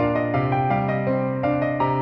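Background music: a gentle piano melody, notes changing about every quarter second.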